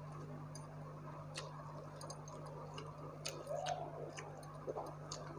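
Irregular sharp clicks and crackles of a person eating with her fingers: crunching and picking at crisp fried food, over a steady low hum.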